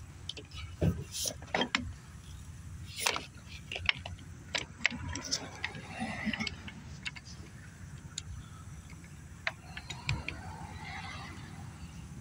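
Irregular light clicks and knocks of metal parts being handled as conduit is fitted into a bolted clamp block.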